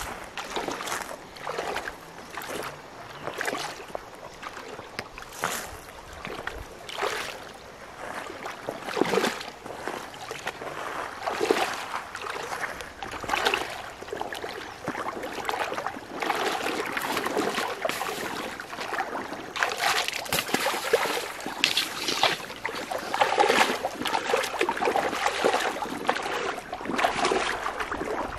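Legs wading through shallow river water, a splash and slosh with each stride; the splashes come every second or two at first, then more densely in the second half.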